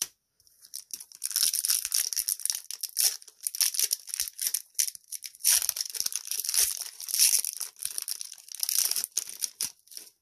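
A trading-card booster pack's wrapper torn open and crinkled by hand, a long run of irregular crackling and tearing.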